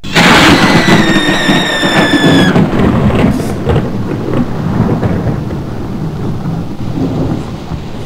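A sudden, loud thunderclap that rumbles on and slowly fades. A high, slightly falling tone rides over its first two and a half seconds.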